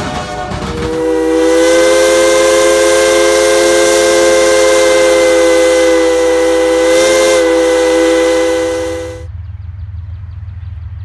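Steam locomotive whistle blowing one long, loud chord of several notes at once, held steady for about eight seconds and cut off abruptly.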